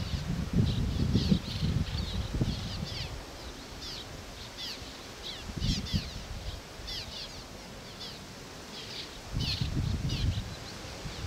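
A colony of swallows calling: many short, quick, high chirps, overlapping and repeated throughout. Bursts of low rumble in the first three seconds and again near the end.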